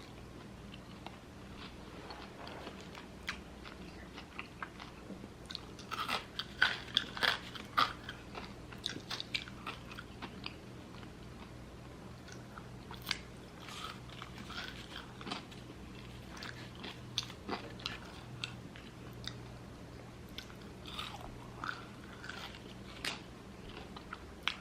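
A person chewing the last mouthful of a cheeseburger with its bun taken off: irregular wet smacks and crunchy clicks of the mouth, busiest about six to eight seconds in, then sparser.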